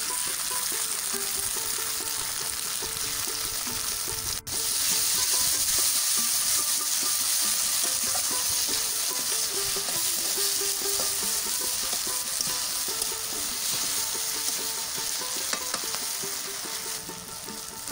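Onions, capsicum and tomato ketchup sizzling in hot oil in a kadai while a spatula stirs them, a steady frying hiss. The sizzle drops out for an instant about four seconds in, then comes back a little louder.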